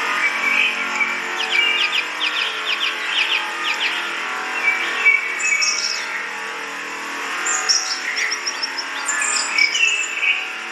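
Birds chirping and singing: short whistled notes, a fast trill of repeated strokes early on and scattered chirps later, over a steady background hiss.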